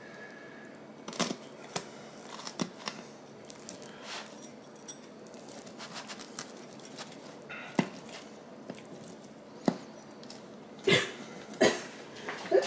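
Knife or cutter and utensils tapping and scraping against the pan while a freshly baked pizza is cut into slices: scattered light clicks and knocks, with a couple of louder knocks near the end.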